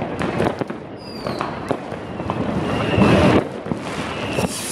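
Street fireworks and firecrackers going off without pause: a dense crackle of cracks and bangs, with a few whistles falling in pitch, loudest just after three seconds in.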